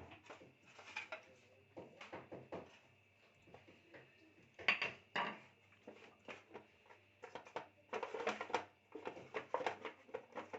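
Irregular knocks and clatter of kitchen utensils on a work surface as tart dough is handled and rolled out to fit a tart mould.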